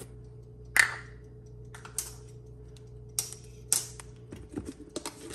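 Sharp clicks and taps of kitchen containers being handled, the loudest about a second in and a quick run of them near the end, over a steady low hum that stops about four seconds in.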